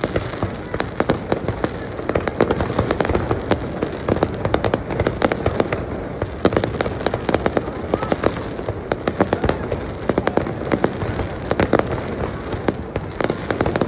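Aerial fireworks display: dense, continuous crackling, with many sharp pops a second.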